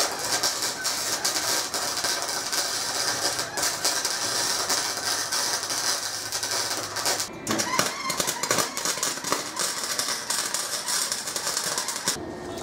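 Electric arc welding on thin steel rods: a steady, dense crackle and sizzle of the arc. It breaks off briefly about seven seconds in, starts again, and stops just before the end.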